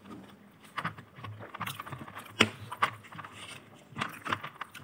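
Scattered small clicks and crunches of crispy fried chicken being bitten and chewed close to the microphone, with one sharper click about two and a half seconds in.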